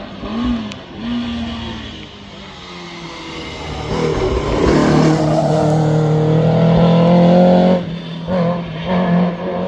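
Historic racing car engine: a few short throttle blips, then the engine revving hard and growing loud from about four seconds in, holding high revs before cutting back sharply near the end, with more quick blips after.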